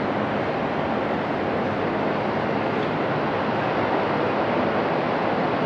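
Jet noise from an Airbus A330-200 (Rolls-Royce Trent 700 engines) on its landing roll just after touchdown, heard from a distance as a steady rush.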